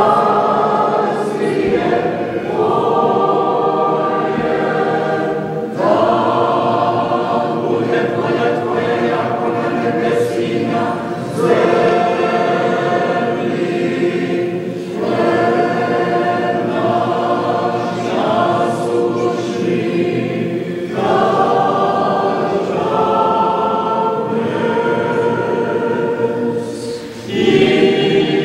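Choir singing Orthodox liturgical chant a cappella, in long held phrases with brief pauses between them.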